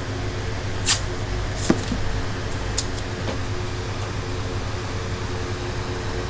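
Steady electric hum of bench equipment or a fan running, with three light clicks in the first three seconds, like small tools or parts being set down on the bench.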